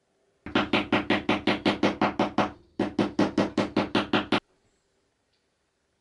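Rapid, evenly spaced knocks, about seven a second, in two runs of roughly two seconds with a short break between; each run starts and stops abruptly.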